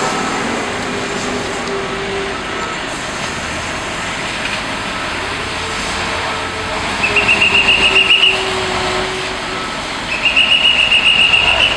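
Heavy Liebherr all-terrain mobile crane running steadily on its diesel engine. Twice it sounds a high, rapidly pulsing warning beeper for about a second each time, about seven pulses a second, typical of a big machine moving off or manoeuvring.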